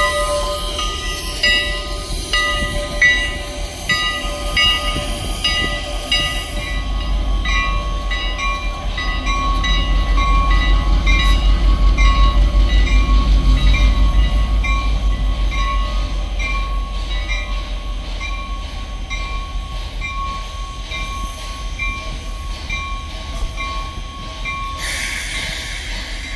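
A bell ringing in steady, even strokes over the deep engine rumble of a diesel locomotive, which grows loudest about halfway through and then eases off.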